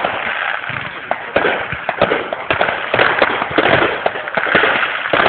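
Fireworks bursting: a dense, continuous crackle of many small pops with sharper bangs mixed in.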